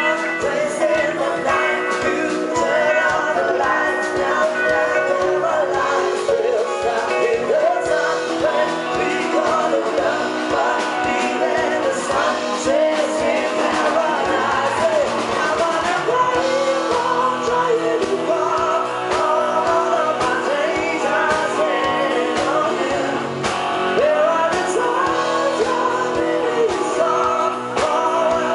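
Pop-rock song: singing over guitar with a steady beat.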